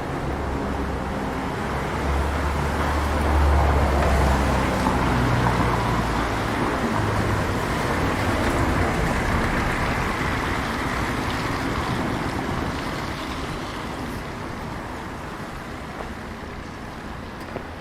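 A motor vehicle passing close by: a low engine hum for the first several seconds, then tyre noise on a wet street that swells and slowly fades away.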